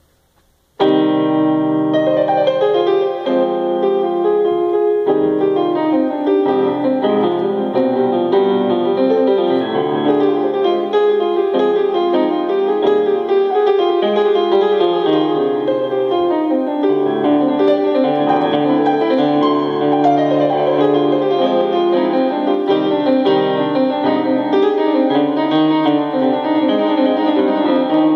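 Piano-sounding keyboard played in an improvised jam: sustained chords in the left hand with a melody over them, starting suddenly about a second in and continuing without a break.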